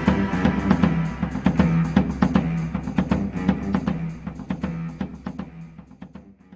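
Outro music with a steady percussive beat over a held low note, fading out near the end.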